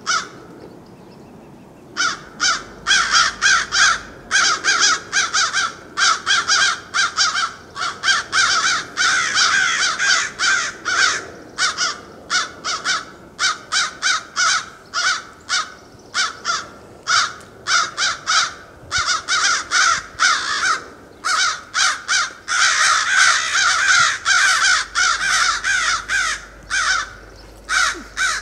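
Several crows cawing harshly and continuously, many calls following one another at about three a second, starting after a short lull about two seconds in.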